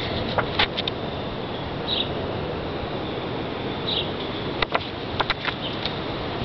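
Printed photographs being handled and shuffled: a few sharp paper clicks and flicks, in two short clusters, over steady outdoor hiss. A short high chirp repeats about every two seconds in the background.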